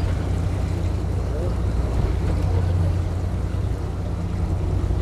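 Fishing boat's engine running steadily with a low hum, under a haze of wind and water noise.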